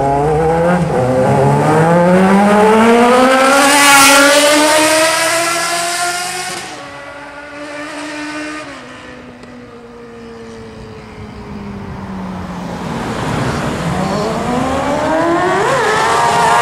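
Sport motorcycle engine pulling hard, its pitch climbing for about four seconds, then dropping away and fading as the bike rides off. In the last few seconds a second sport motorcycle comes closer, revving up and loudest at the end.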